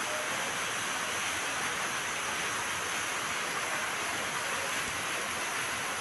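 Waterfall pouring down a rock face and splashing onto the rocks below: a steady, even rush of water.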